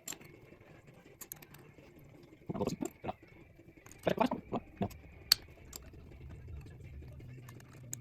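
Metal clutch plates being stacked into a motorcycle's clutch basket: a few short groups of light clinks and knocks about two and a half and four seconds in, and one sharp click a little after five seconds.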